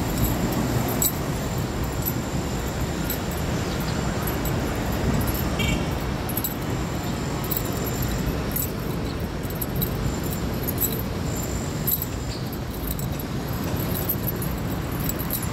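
City street ambience: a steady low rumble of traffic, with scattered light clicks on top.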